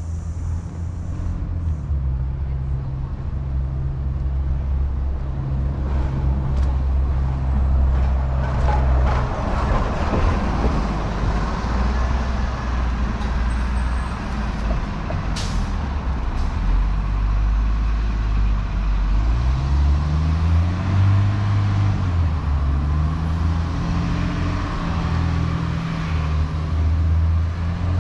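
City street traffic dominated by a heavy vehicle's engine running close by, with a steady low rumble that climbs in pitch through a couple of steps about two-thirds of the way in as it accelerates away.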